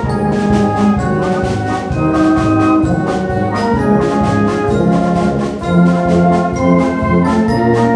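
Ensemble music led by brass, trumpets and trombones playing held notes and phrases over a steady beat.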